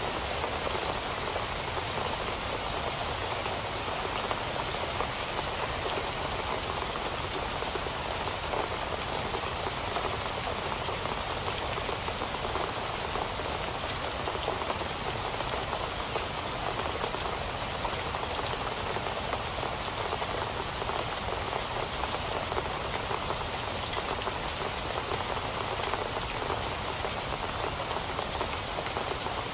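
Steady rain falling on a surface, a dense patter of drops.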